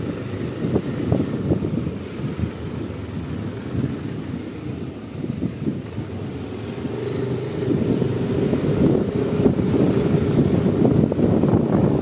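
Small motorcycle running while being ridden along a lane, with wind rumbling on the microphone; it gets louder about two-thirds of the way through.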